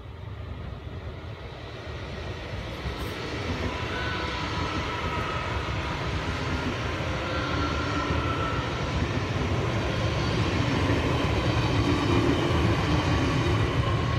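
Two coupled NS VIRM double-deck electric trainsets passing, a steady rush of wheels on rail that builds as the train nears and is loudest near the end, with a few faint whining tones over it.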